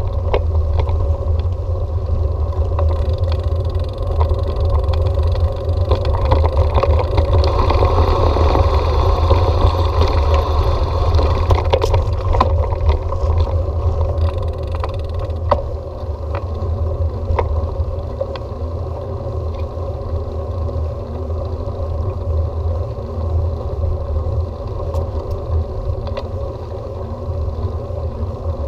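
Bicycle riding noise: a steady low rumble of wind and tyres on the road, with scattered light rattles and clicks from the bike.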